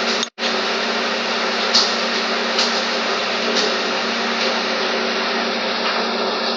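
Steady motor hum with hiss, with a few faint clicks; it drops out completely for a moment near the start.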